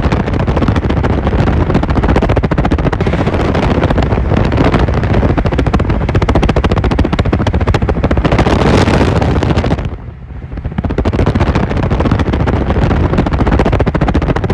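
Loud, continuous rumble of a lowered Chevrolet square-body pickup's engine and exhaust as it drives alongside at highway speed, mixed with road and wind noise. It swells around eight seconds in and dips briefly just after ten seconds.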